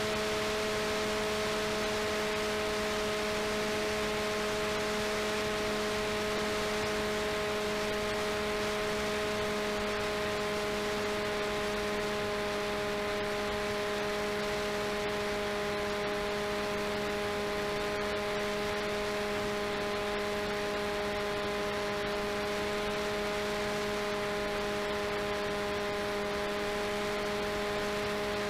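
RCTimer 5010 630KV brushless outrunner motor and propeller of an FPV delta-wing plane running at a steady speed, heard from on board: a constant droning hum with several overtones over a steady hiss of rushing air.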